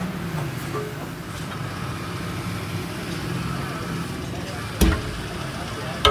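Heavy cast iron tractor transmission housing being tipped over and set down, with a sharp metallic clank about five seconds in and another knock at the very end. A steady low engine-like drone runs underneath.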